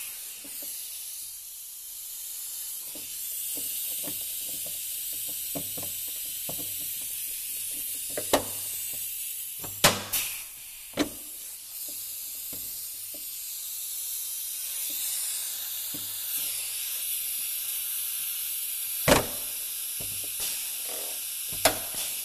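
Air-powered pop-rivet gun on an air hose hissing steadily, with several sharp snaps as rivets are pulled and set. The snaps come in a group around the middle and a second group near the end.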